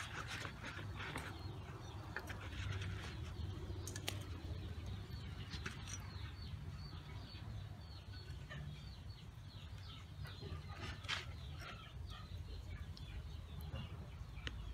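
Birds calling over a steady low hum, with a few sharp clicks from metal tongs handling the grilled rats.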